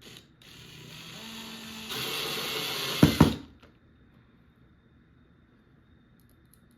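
Power drill driving a screw, running for about three seconds and growing louder, with two sharp clacks just before it stops, as a strike-plate screw is driven home.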